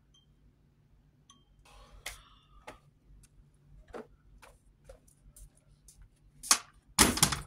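Scattered light clicks and taps of objects being handled and set down, with a louder, longer clatter about seven seconds in.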